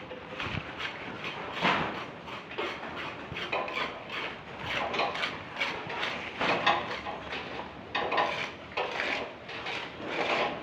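Irregular clinks and knocks of metal tools and parts being handled.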